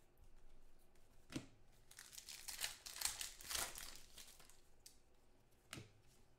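A trading-card pack wrapper being torn open and crinkled, faintly, with a sharp click about a second in and another near the end as cards are handled.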